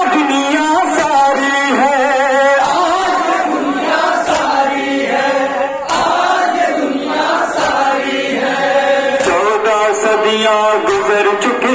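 Men chanting a noha, a Shia lament for Muharram, in unison, the sung lines wavering and drawn out. Sharp slaps of matam, chest-beating with the open palm, keep a slow steady beat of about one every one and a half seconds.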